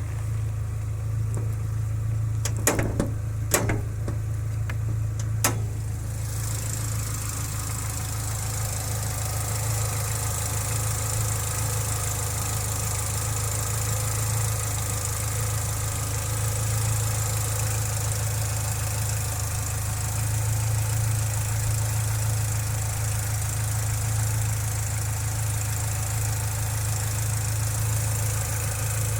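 Nissan Almera G15's K4M 1.6-litre four-cylinder petrol engine idling steadily, with a few sharp clicks near the start. By the owner's account the engine no longer knocks after six treatments with Suprotec Active Plus additive.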